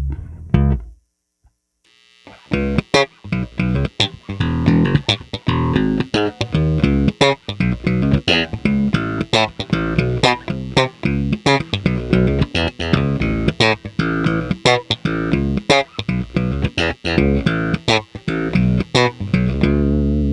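Fender Player Series Mustang Bass PJ, a short-scale electric bass, playing solo: a held low note fades out in the first second, then after a short pause a fast line of sharply plucked notes, several a second.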